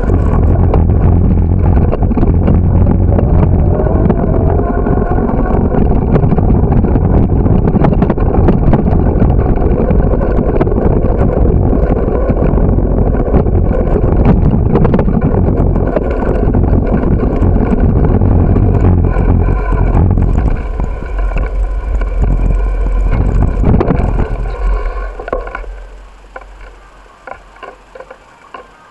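Wind buffeting the microphone of a camera on a moving bicycle, with rattles and knocks as the bike rolls over the pavement. The noise dies away sharply near the end as the bike comes to a stop.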